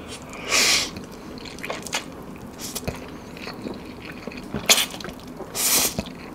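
Instant noodles slurped through the lips in two loud wet slurps, each about half a second long, one about half a second in and one near the end. Between them come a shorter slurp and smaller wet chewing and mouth sounds.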